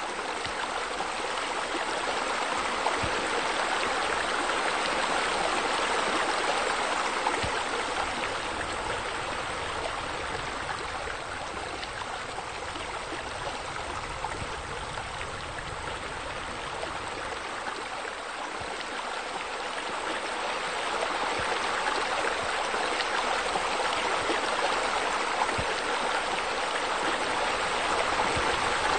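Steady rush of running, splashing water, swelling over the first few seconds, easing off midway and building again toward the end.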